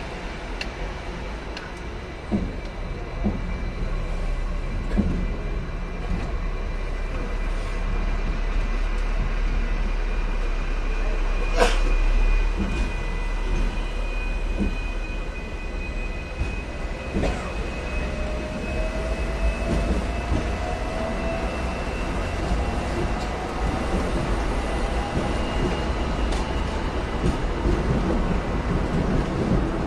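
Hong Kong double-decker electric tram running along its track, heard from on board: a steady low rumble with scattered wheel clicks and one sharp clack about twelve seconds in. A faint high whine runs through it, and a fainter tone rises slowly in pitch in the second half.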